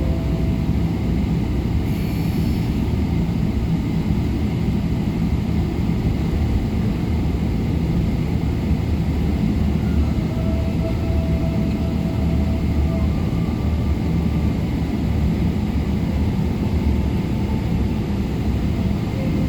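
Steady noise of a Boeing 777-200LR airliner heard from inside the cabin: a deep, even rumble of engines and airflow with no change in level.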